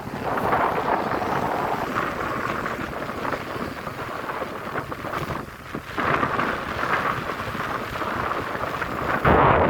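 Wind buffeting the microphone in gusts, a rough rushing noise that swells and drops, with a stronger gust near the end.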